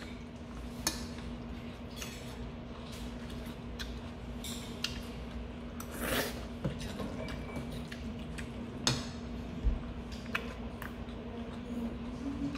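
Someone eating jajangmyeon noodles: metal chopsticks clicking against the bowl now and then, and one noodle slurp about six seconds in, the loudest sound. A steady low hum runs underneath.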